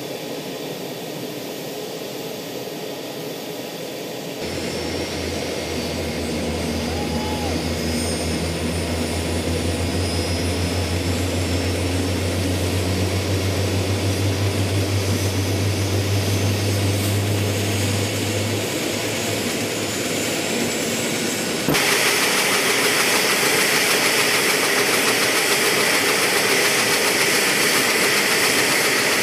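AH-64D Apache Longbow attack helicopter running on the ground with its rotor turning: the whine of its twin turboshaft engines rises in pitch over a rapid rotor beat. About 22 seconds in the sound jumps abruptly louder and brighter.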